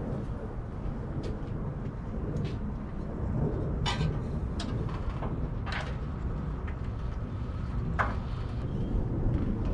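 A few sharp clicks and knocks of hand tools at work over a steady low rumble.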